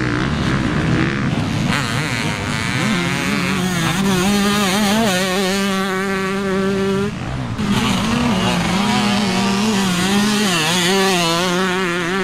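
Motocross dirt bike engines running hard around the track, a buzzing engine note held at a high, fairly steady pitch that wavers slightly. It breaks off briefly about seven seconds in, then picks up again.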